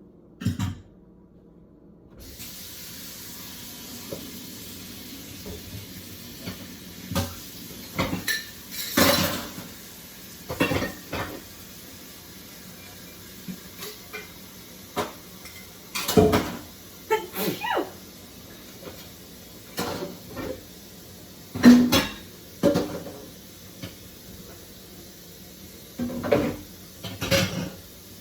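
Kitchen tap running steadily from about two seconds in, with repeated short clatters and knocks of dishes and utensils being handled.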